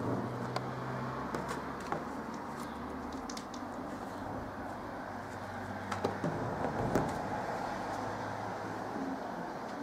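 A few soft knocks and scuffs from a cat playing with a catnip sack on a fabric ottoman, over a steady low background hum.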